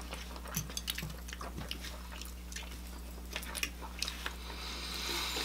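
Close-up eating sounds: forks tapping and scraping on plates amid chewing and mouth clicks, as scattered short ticks over a low steady hum. A soft hiss comes near the end.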